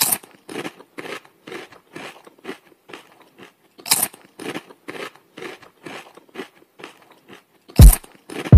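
Crunchy chewing, a short crunch about three times a second, one louder about halfway. Near the end two heavy, deep electronic bass-drum hits fall in pitch.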